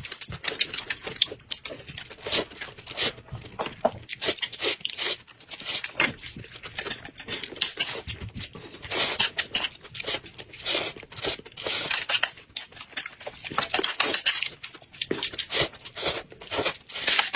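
Two people slurping and chewing scallion-oil noodles, many irregular short slurps and mouth smacks, several a second, with no break.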